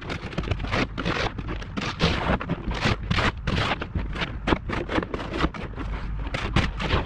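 Snow shovel scraping and chopping at packed snow and ice, with boots crunching on the snow close by: a quick, irregular run of scrapes and crunches.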